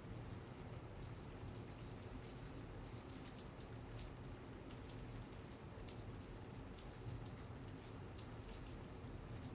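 Steady rain falling, with individual drops ticking irregularly, over a steady low hum.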